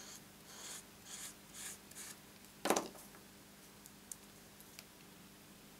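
Fine-tip glue pen scratching along a narrow cardstock strip in four or five short strokes, then a single sharp knock a little before three seconds in, followed by a couple of faint ticks.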